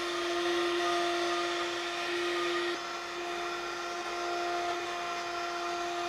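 PuRuikai N361 window-cleaning robot running on a mirror, its suction fan giving a steady whine as it holds itself to the glass and moves across it; the level dips slightly about three seconds in.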